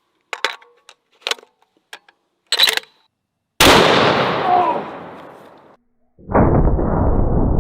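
A few short clicks and knocks, then a single shot from a 700 BMG bolt-action rifle: a sudden, very loud blast with an echo that fades over about two seconds. A couple of seconds later a loud, steady, low rushing noise starts and holds.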